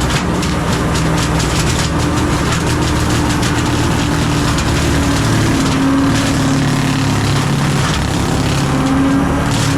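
John Deere 326E skid steer's diesel engine running under load, driving a hydraulic brush cutter. A steady hum wavers slowly in pitch, and a dense crackle of brush being chopped is heaviest in the first few seconds.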